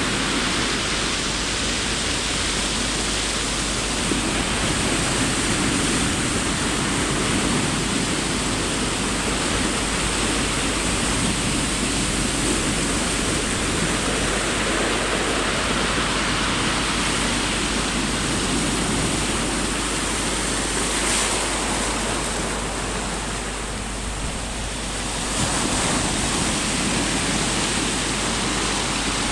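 Sea waves washing onto the shore: a steady rushing that slowly swells and ebbs, easing off for a few seconds and then surging back abruptly near the end.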